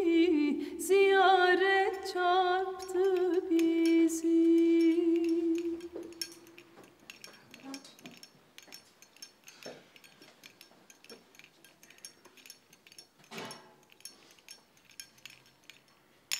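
A solo voice singing a slow melody in long, wavering held notes, fading out about six seconds in. After it, quiet room sound with scattered light clinks and knocks of glasses and a metal serving tray.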